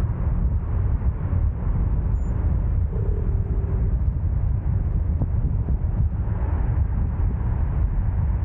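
Steady low rumble of road traffic noise, with a faint brief tone about three seconds in.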